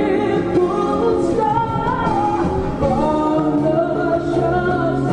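A national anthem played for a flag salute: voices singing a slow melody with instrumental accompaniment.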